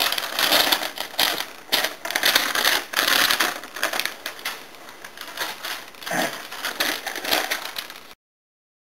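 Sheets of paper rustling and crinkling as they are flipped through and shuffled by hand, in a quick, irregular run of crackly rustles that cuts off suddenly near the end.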